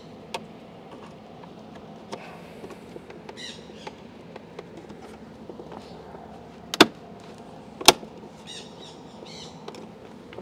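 Small plastic clicks and taps as a replacement mirror puddle-light assembly is pushed and pried into a pickup's side-mirror housing with a plastic trim stick. Two sharp clicks about a second apart near the middle are the loudest. Bird chirps are heard in the background.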